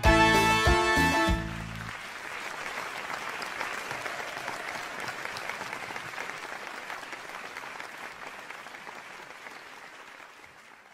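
A live cumbia band's final chord stops about a second and a half in, followed by audience applause that slowly fades away.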